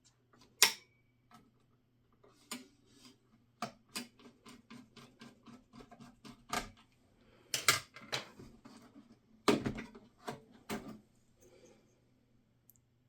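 Clicks, ticks and clattering knocks of plastic and metal computer parts being handled and fitted inside an HP EliteDesk 805 G6 small-form-factor desktop. There is a sharp click about half a second in, a run of small, evenly spaced ticks in the middle, and several louder clattering knocks near the end.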